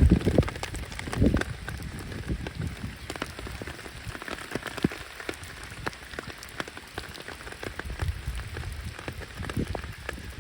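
Steady rain falling on surfaces, with many separate drops ticking sharply close by. A couple of low rumbles come in the first second and a half.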